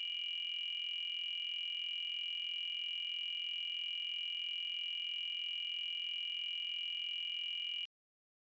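A steady, high-pitched electronic tone held unchanged, with a fainter second tone just below it, cutting off suddenly about a second before the end into dead silence.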